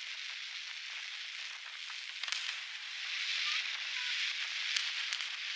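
Fireworks display: a steady crackling hiss, with a few sharp cracks about two seconds in, near five seconds and at the end.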